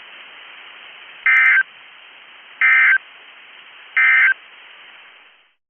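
NOAA Weather Radio sending its SAME end-of-message code: three short buzzing digital data bursts about 1.35 seconds apart over steady radio hiss, marking the end of the warning. The hiss fades out and cuts off near the end.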